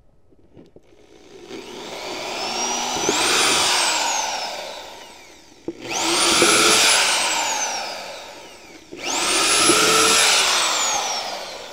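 Corded electric drill boring holes through a plastic tote lid, three times over. On each run the motor's whine rises quickly to a high pitch and then winds down slowly; the first run comes up more gradually.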